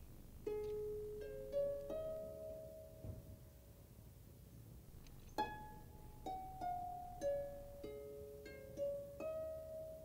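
Background music: a slow, gentle melody of single plucked string notes, each ringing on and fading before the next.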